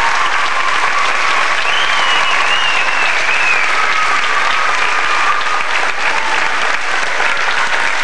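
Audience of children and parents applauding steadily, with a high wavering call over the clapping for a second or two near the middle.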